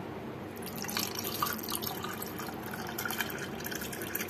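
Cold water poured from a bottle into a glass of ice cubes, mint and lemon slices, splashing and trickling over the ice; the pour starts about half a second in.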